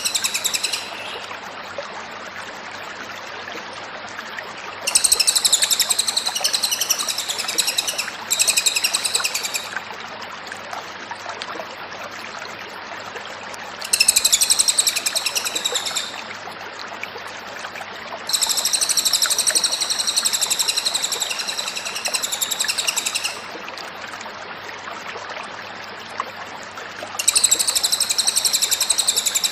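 Cililin songbird singing in bursts of rapid, high-pitched trilled song, some about a second long and the longest about five seconds, with pauses of a few seconds between them over a steady background hiss.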